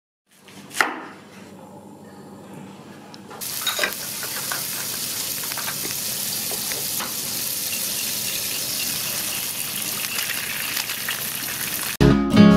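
Oil sizzling in a frying pan around a bell pepper ring, after a single sharp knock about a second in; the sizzle jumps suddenly louder about three and a half seconds in and then holds steady. Acoustic guitar music starts near the end.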